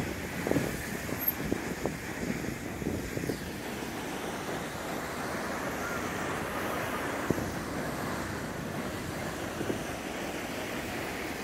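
Steady outdoor street noise: wind on the phone's microphone with traffic, and a few faint knocks in the first few seconds.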